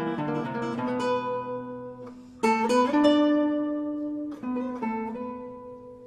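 Background music: acoustic guitar playing a quick run of plucked notes, then a strummed chord about two and a half seconds in that rings out and slowly fades.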